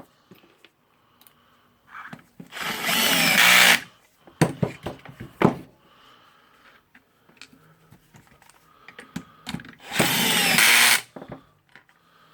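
Electric screwdriver running in two short bursts, about a quarter of the way in and again near the end, driving in the screws that tighten the hammer casing. Between the bursts come a few sharp clicks and knocks.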